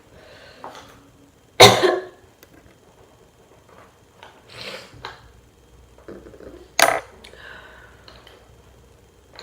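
Makeup items being handled and set down on a hard surface: sharp clicks and knocks, the loudest about a second and a half in and another near seven seconds, with softer rustling between.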